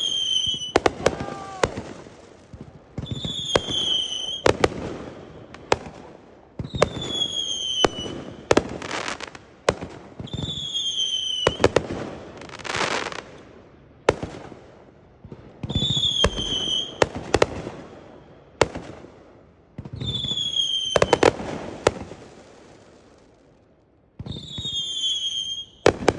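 Fireworks going off in a repeating cycle, about seven times. Each time a short whistle drops slightly in pitch, then comes a cluster of sharp bangs and a crackling hiss.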